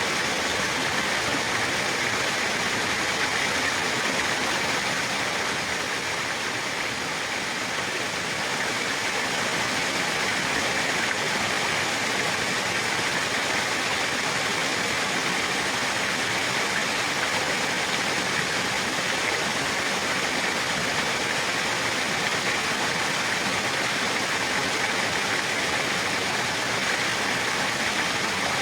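Running water flowing steadily with an even rushing sound, like a stream or small falls.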